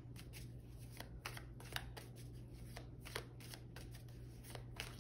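Tarot cards being shuffled by hand, faintly: a run of soft, irregular card clicks and flicks.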